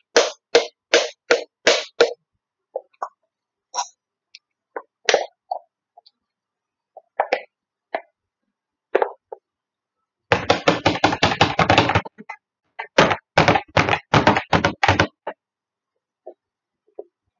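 Glitter glue bottle knocked and shaken to get the last of the glue out: a run of evenly spaced knocks, scattered single taps, then a fast flurry of knocks about ten seconds in and a few more after.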